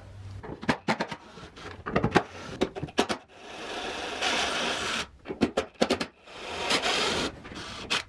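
DeWalt 20V cordless impact driver backing out Torx screws, in two runs of about a second and a half each, the first about three seconds in and the second near the end. Sharp clicks and knocks of the tool being handled come before and between the runs.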